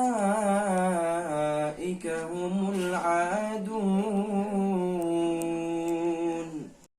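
A man's voice reciting the Quran in melodic, unaccompanied tajweed style, with drawn-out, wavering notes. A long, steady held note starts about halfway through and ends just before the close.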